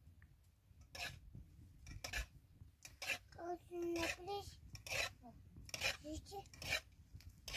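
Cooking utensil scraping and stirring in a metal pan over a wood fire, in a series of short strokes about once or twice a second.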